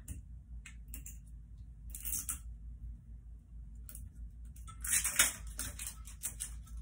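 Small clicks and scraping of a bottle cap being twisted and worked open by hand, scattered at first, then a quicker run of sharp clicks about five seconds in.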